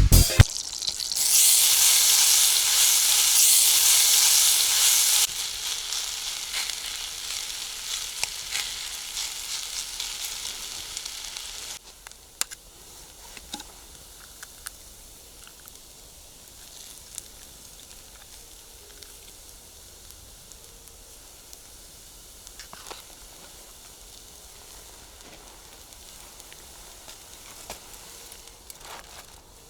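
Pancake batter frying in a hot pan, sizzling loudly for the first few seconds, then dropping to a softer hiss that fades out about twelve seconds in, leaving a faint background with occasional small crackles.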